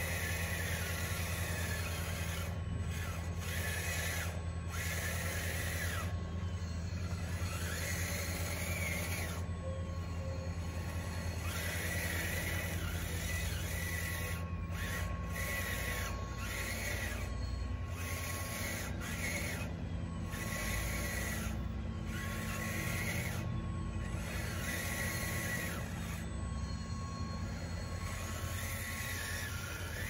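Electric motors and gearing of a radio-controlled construction model at work: a steady low hum with a higher whine that rises and falls and cuts in and out as the model is driven.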